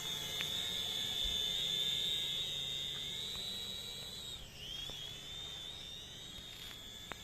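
Small quadcopter drone's motors and propellers whining at a steady high pitch. The pitch dips and comes back up about two thirds of the way through, and there is a short click near the end.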